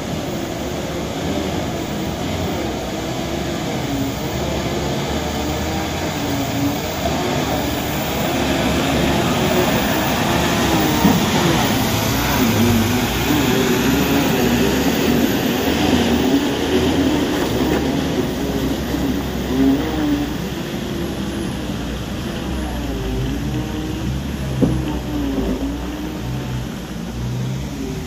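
A motor vehicle's engine running steadily under a loud rushing noise, its pitch rising and falling as the revs change.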